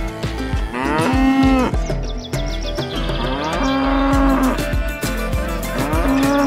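Cow mooing sound effect: three long moos about two and a half seconds apart, over background music with a steady beat.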